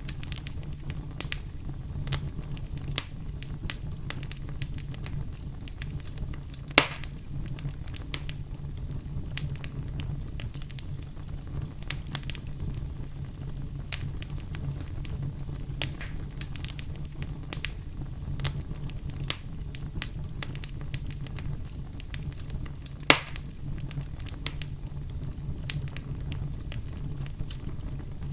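Campfire burning, the wood crackling with frequent small snaps over a steady low rumble. Two louder sharp pops stand out, one about a quarter of the way in and one about four-fifths of the way through.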